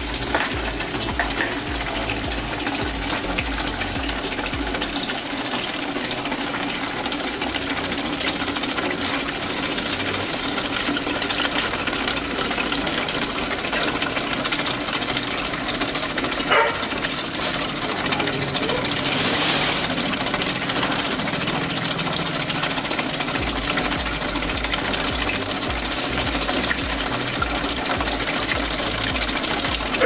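Homemade water-turbine generator running: a steady mechanical whir from the spinning washing-machine motor, mixed with water splashing down through the plastic bottles onto the turbine.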